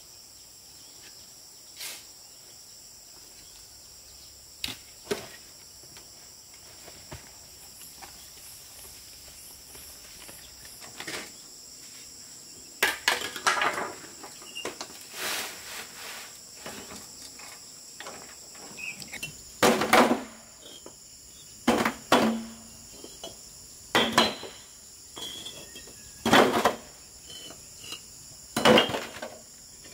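Red clay bricks being picked from a pile and set into a steel wheelbarrow: sharp clinks and knocks, about one every two seconds in the last third. Before that a wheelbarrow rattles across concrete, all over a steady high drone of insects.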